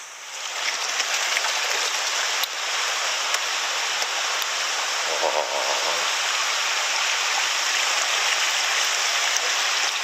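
Shallow rocky stream running, a steady rushing hiss that swells during the first second and then holds. A few faint clicks of footsteps on stones come through it.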